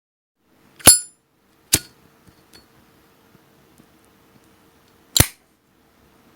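A Zippo lighter clicking three times with sharp metallic clinks. The first, ringing clink is the lid flipping open, the wheel strike follows under a second later, and the lid snaps shut about three and a half seconds after that.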